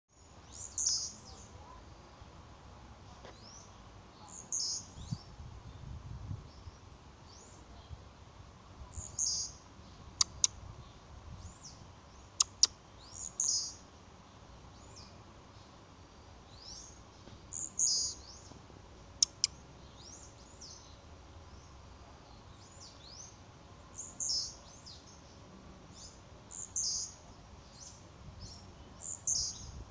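Blue-black grassquit (tiziu) giving its short, high, falling 'tiziu' call every few seconds, the leap-and-call display of the species, with fainter chirps between. A few sharp clicks, in pairs, come near the middle and are the loudest sounds.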